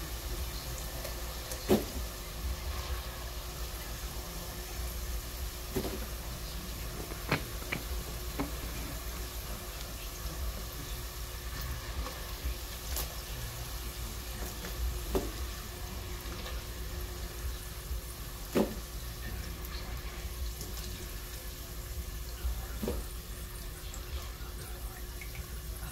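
Metal tongs clicking and knocking every few seconds as fried french fries are lifted out and dropped into a plastic container lined with paper towels, over a steady hiss and hum.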